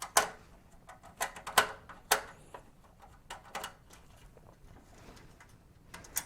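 Light, irregular metal clicks and taps from a screwdriver and small screws being worked out of a steel computer case.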